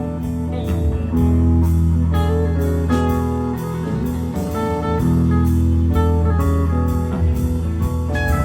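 Live band playing an instrumental stretch: guitar lines over bass and a steady drum beat.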